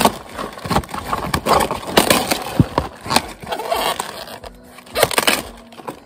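Outer leaves of a red cabbage being snapped off at the stem and pulled away: a run of irregular crisp cracks with leafy rustling in between.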